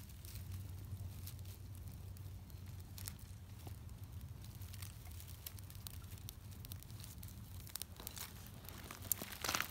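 Small kindling fire of dry twigs crackling and snapping, with bundles of thin sticks rustling as they are handled and laid on. The snaps come thicker and louder near the end, over a low steady hum.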